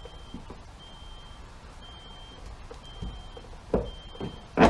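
Plastic trim clips being pried out of a BMW E46 trunk-lid panel: a few short clicks and knocks in the second half, the sharpest just before the end. Under them a faint high beep repeats about once a second.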